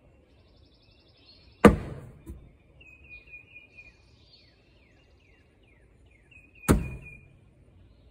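Two Local Hustler X cornhole bags hitting a wooden ACE cornhole board, each a sharp thud followed by a short scuffing slide, about five seconds apart. Birds sing in the background.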